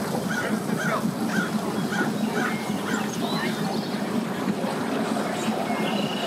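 Yamaha 212X twin-engine jet boat moving off slowly at low revs, with a steady low engine hum. Over the first half, a bird gives a series of short honking calls, about two a second.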